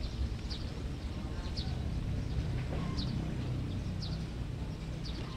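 A bird giving short, high chirps about once a second over a steady low rumble of outdoor background noise.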